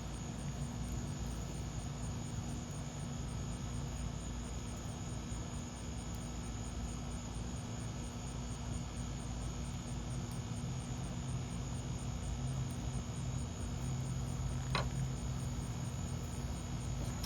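Crickets chirping in a fast, even, high-pitched pulse over a steady low hum and background noise, with a single faint tick about fifteen seconds in.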